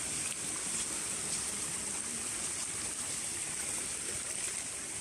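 Steady rush of a flowing forest stream, with a constant high-pitched hiss.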